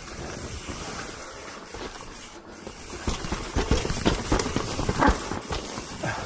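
Mountain bike riding down a dirt trail: a steady rushing noise, then from about three seconds in a run of irregular rattles and knocks as the bike goes over rough ground, the loudest about five seconds in.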